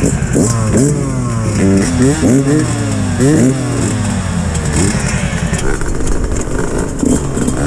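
Several dirt bike engines, among them a Yamaha YZ125X two-stroke, revving in repeated quick throttle blips, each a short rising and falling whine. About two-thirds of the way through the blips stop and the engine sound turns steadier as the bikes ride off.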